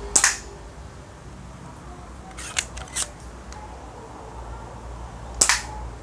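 Toy Beretta pellet pistol firing: a sharp snap just after the start and another near the end, with two lighter clicks in between.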